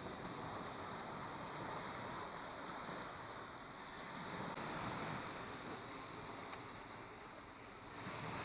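Steady rushing noise of sea waves and wind, swelling and easing gently.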